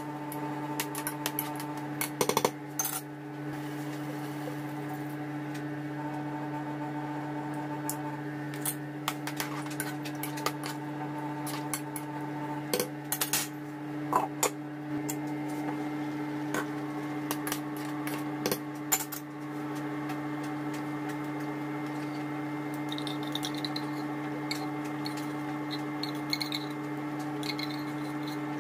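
Metal spoon and glass pot lid clinking and scraping against a stew pot, in scattered sharp clicks. A steady low hum runs underneath.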